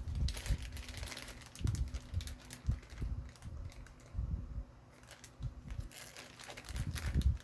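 Plastic bags crinkling, with small plastic toys clicking and knocking as they are handled and sorted through.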